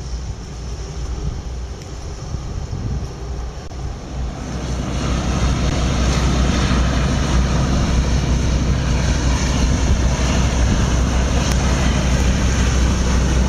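MTU 20V 538 TB91 diesel engines of a Combattante III-class fast missile boat running with a steady low hum, mixed with the rush of its bow wave. The sound grows louder about four and a half seconds in as the boat comes close.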